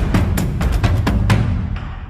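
Background music: a fast, dramatic drum and percussion beat over a deep low bass, fading away near the end.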